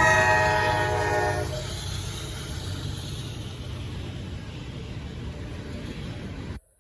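Diesel locomotive air horn sounding a chord that ends about one and a half seconds in, followed by the steady low rumble of the train running by. The sound drops out abruptly near the end.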